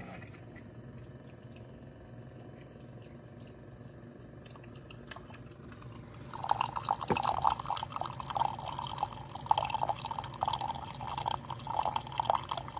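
Single-serve coffee maker dispensing coffee into a ceramic mug: only a quiet steady hum at first, then from about six seconds in the stream of coffee splashing and trickling into the mug.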